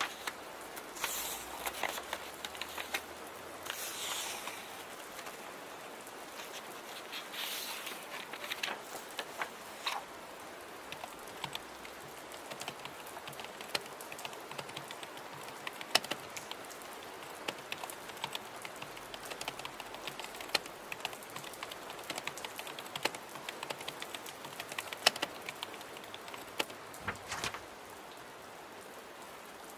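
Steady rain with computer-keyboard typing clicks scattered throughout. There are a few short swishing sounds in the first eight seconds.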